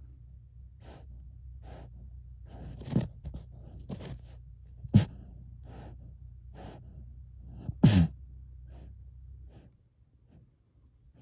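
A marmot in its burrow taking short, breathy sniffs or snorts about every second, with a few sharper, louder ones, over a low steady hum that stops shortly before the end.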